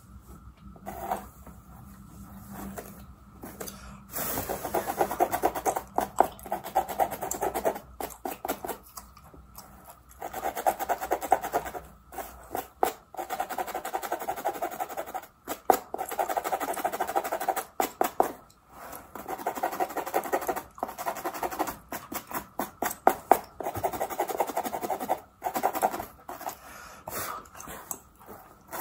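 Fine-tooth plastic lice comb scratching along the scalp of a mannequin head, close up. It makes rapid scraping strokes in bursts of a second or two with short pauses between, and becomes busier about four seconds in.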